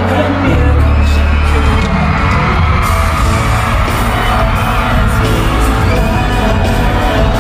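Live pop-rock band music played loud through a concert PA, with a steady heavy bass line and singing, and audience yells and whoops mixed in.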